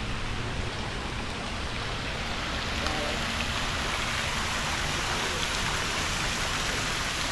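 Water pouring out of the arches of a travertine-style rock wall into a thermal pool: a steady splashing hiss that grows a little louder about three seconds in.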